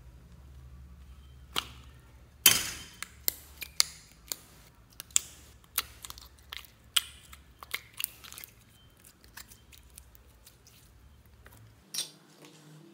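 Pink glitter slime being pulled from a bear-shaped container and pressed into a tray, giving a run of sharp wet clicks and pops. The loudest comes about two and a half seconds in, and one more follows near the end.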